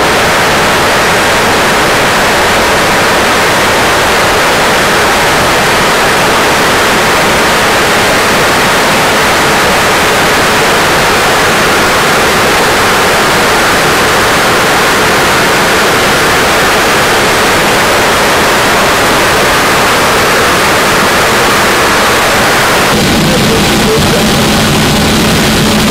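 Loud steady rushing hiss of air noise on an Airbus A340 flight deck during the approach. Near the end a low steady hum joins in.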